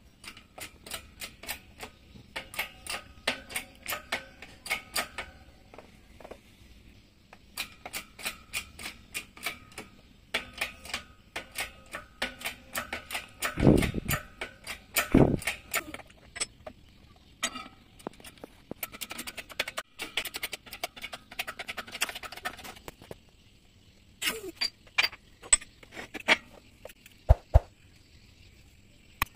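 Rapid metal clicking and tapping as a two-stroke outboard crankshaft is worked in a workshop press, in runs of several sharp, briefly ringing clicks a second, with two heavier low thumps near the middle.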